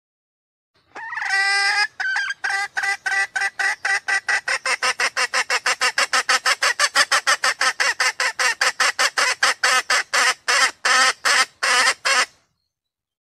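Red junglefowl hen calling: one long note about a second in, then a fast run of short clucks, about five a second, that slows near the end before stopping.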